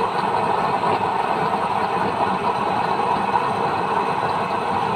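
Small electric blower fan running steadily, forcing air into a waste-oil stove's burner while the oil flame burns, making an even, unbroken rushing noise.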